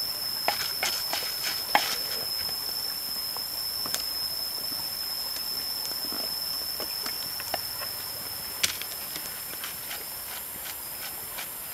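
Small eels tipped from a wicker basket into a wooden mortar, giving scattered light clicks and knocks as they slide and drop in, with a sharper knock near the start and another about two-thirds of the way through. A steady high thin whine sounds in the background.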